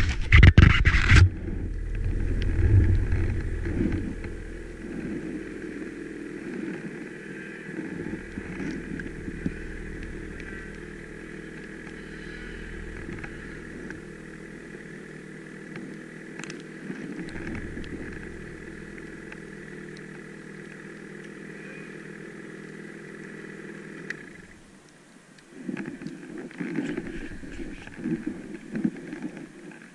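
Snowmobile engine running steadily at idle, after a few loud knocks in the first second. The engine sound dips briefly about 24 seconds in, then comes back less evenly.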